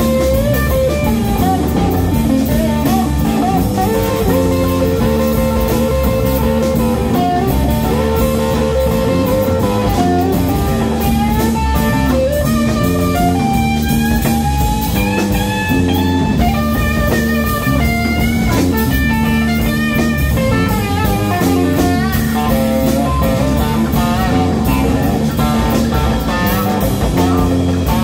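Live blues-rock band playing: electric guitar, bass guitar and drum kit, with a lead line of held and bent notes over a steady groove.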